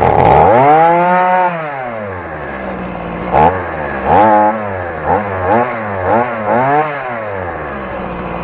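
Stihl chainsaw's two-stroke engine running at high revs right away, falling to a steady idle over about two seconds, then revved in about six short throttle blips before settling back to idle.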